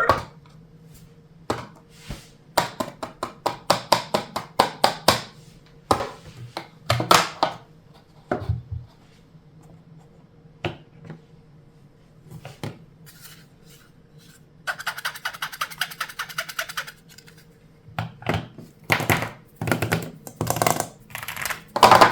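Plastic keys and buttons being pressed and tapped in irregular quick runs of sharp clicks. A fast, even rattle of clicks lasts about two seconds past the middle.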